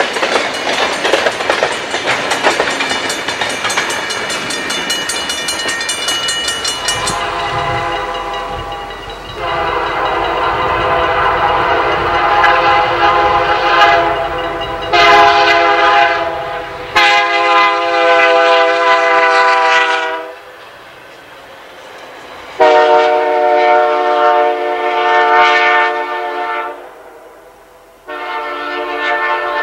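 Freight train cars rolling past with steady wheel-on-rail clatter. About seven seconds in this gives way to a locomotive's multi-chime air horn blowing a chord in a series of long blasts with short gaps between them, five in all, the last still sounding at the end.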